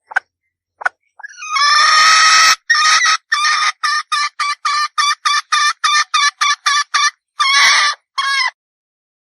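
Red junglefowl hen calling: a few short notes, a drawn-out call, then a fast run of about fifteen clucks at roughly three a second, ending with two longer calls.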